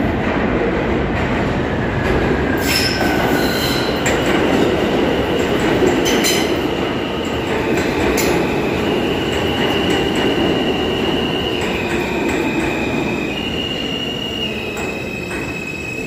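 R160 subway train rolling through an underground station, a steady loud rumble of wheels on rail. From about six seconds in it carries high-pitched squealing tones that shift in pitch, with a few short clanks.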